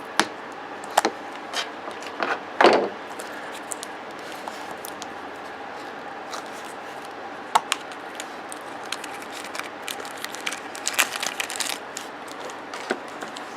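A plastic gacha capsule being handled and opened by hand: scattered sharp plastic clicks and scrapes, the loudest about three seconds in, and a quick run of small crackly clicks near the end.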